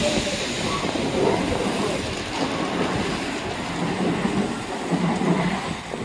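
Steady rushing noise of a Tokaido Shinkansen train at the platform, with a faint low hum in the second half.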